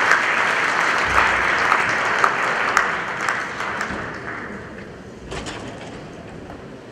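Audience applauding after a speech, the clapping dying away over the second half, with a single knock about five seconds in.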